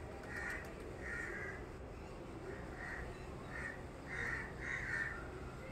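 A crow cawing repeatedly, about six short caws, the ones near the end loudest.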